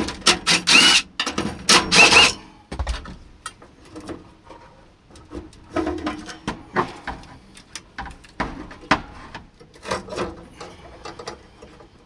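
A cordless driver whirs in a few short bursts in the first two seconds or so, working on the gas furnace's burner assembly as the burners are being pulled. After that come scattered clicks, scrapes and light metal clatter as parts are handled.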